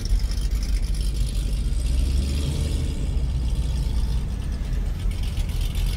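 Supercharged 6.2 L LT4 V8 of a heavily modified C7 Corvette Z06 idling with a big-cam lope, a low, uneven rumble. It is heard from inside a following car.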